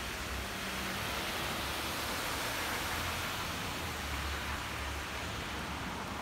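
Steady rain falling on a wet street, a dense hiss that swells a little in the middle, with a low rumble underneath.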